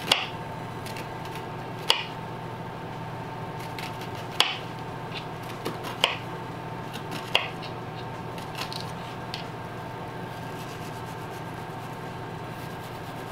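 Chef's knife dicing an onion, the blade knocking sharply on the cutting board about five times in the first seven seconds or so with softer cuts between, then only light cutting over a steady low hum.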